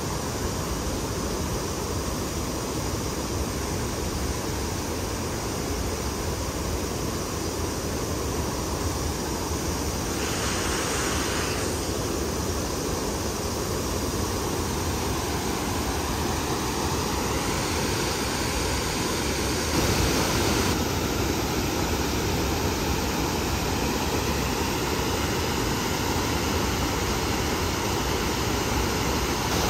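Mountain river rushing over rapids and low stepped weirs: a steady wash of white water.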